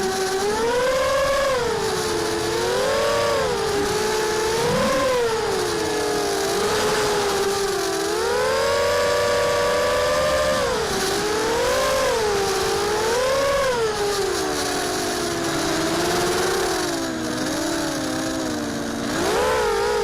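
Brushless motors and 5x4 propellers of a mini H racing quadcopter (2204, 2300 KV) whining continuously. The pitch swoops up and down every second or two as the throttle changes, several close tones from the separate motors.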